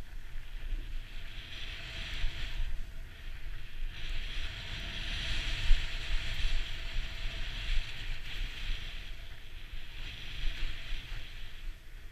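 Snowboard riding through deep powder snow: a rushing hiss that swells and fades with each turn, over low wind buffeting on the camera microphone.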